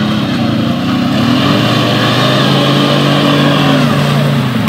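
Quad bike (ATV) engine revving up and down under load as it pushes through deep mud, then holding a steady note for a few seconds before the revs drop near the end.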